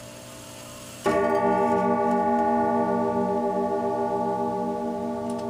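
Howard Miller Concerto grandfather clock movement striking the hour count for one o'clock: a single blow about a second in, with four chime rods hit together. The rods ring on in a slow, pulsing decay over the faint ring of the notes before.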